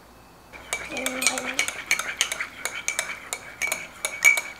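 Metal spoon stirring coffee in a mug, clinking against the sides about three times a second while the mug rings between strikes, mixing in sugar and creamer. The clinking starts about half a second in.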